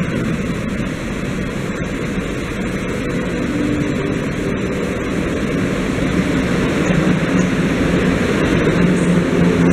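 EP09 electric locomotive hauling a passenger train as it pulls into the station: a steady rumble of the train rolling past, with a low steady hum, growing gradually louder toward the end.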